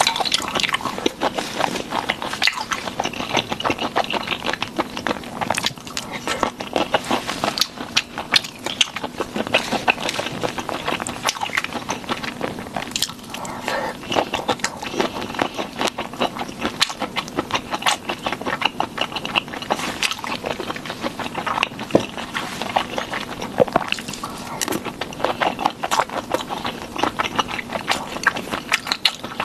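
Close-miked eating of shrimp in sauce: wet chewing, biting and lip smacking, with many small sticky clicks and crunches.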